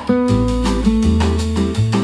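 Bossa nova style acoustic guitar music: plucked and strummed chords over a steady, sustained bass line.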